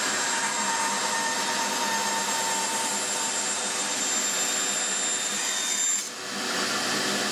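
Rikon bandsaw running and cutting through a softwood board: a steady machine whine over the hiss of the blade in the wood. The level dips briefly about six seconds in, then the sawing picks back up.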